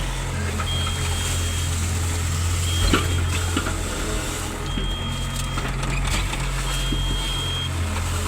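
Excavator's diesel engine running steadily while its warning beeper sounds a high, second-long beep about every two seconds. A single sharp knock comes about three seconds in.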